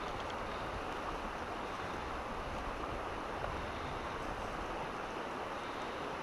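Steady rush of a fast-flowing river's current over the shallows, an even, unbroken noise.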